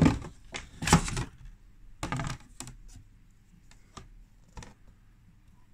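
Stiff Pertinax calibration-chart boards clacking against each other and the wooden case as they are handled: a handful of sharp clacks, the loudest at the start and about a second in, then fainter ones spaced out.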